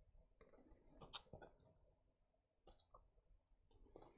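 Faint, scattered small clicks and taps of hands handling parts inside an opened Nintendo Switch, fitting its metal heat shield. The sharpest click comes about a second in, with a few more later.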